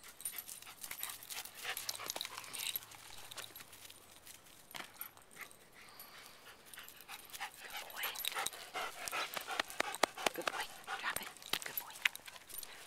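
A dog panting with a frisbee in its mouth, over quick crackles of dry leaves underfoot that grow busier in the second half.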